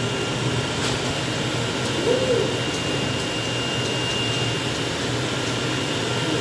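Large-format flatbed cutting plotter at work, cutting printed sticker vinyl: a steady machine hum and whir with a thin high whine over it.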